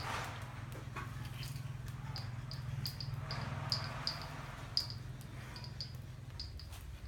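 Soft rustling of hay as a bull feeds with its head down in the straw, with short high chirps repeating irregularly and a low steady hum underneath.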